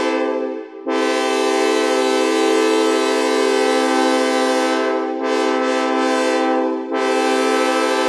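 Sawtooth synthesizer chord on the AudioKit Synth One app imitating a train horn, sounded in blasts: a short one, then a long one of about six seconds with a brief dip near the five-second mark, then another starting near the end.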